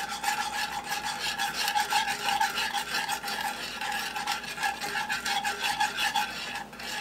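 A wire whisk scraping quickly around the bottom of a skillet of melting butter, a steady rasp of rapid strokes.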